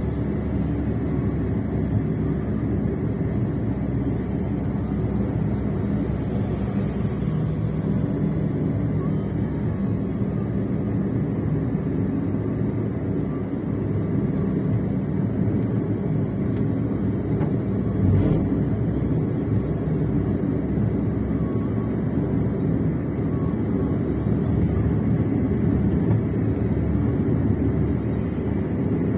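Steady engine and road rumble of a moving vehicle, heard from inside its cabin, with one short bump about 18 seconds in.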